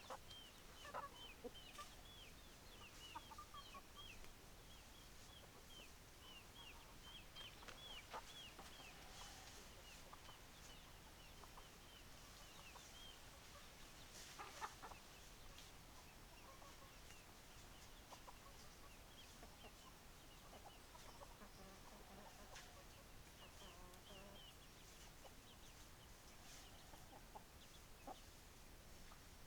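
Chickens clucking faintly, with runs of quick, high chirping calls in the first half and again near the end.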